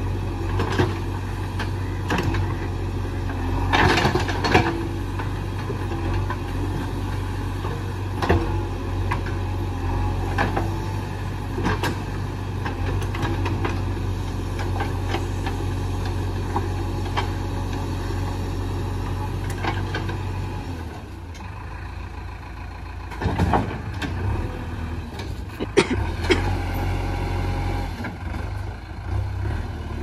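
JCB 3DX backhoe loader's diesel engine running steadily under load as the backhoe arm works, with scattered sharp knocks and clanks from the bucket and boom. The engine eases off about two-thirds of the way through and picks up again near the end.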